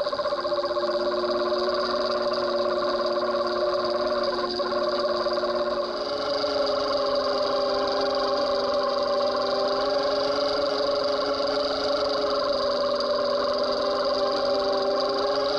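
Trolling boat's engine heard underwater: a steady drone of several level tones, whose pitch steps slightly about six seconds in.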